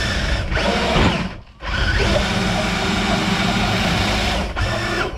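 Traxxas TRX-4 RC truck's electric motor and geared drivetrain whining under throttle, heard from a camera mounted on the truck. The pitch rises about a second in, the sound cuts out briefly, then holds steady for about three seconds and drops off near the end.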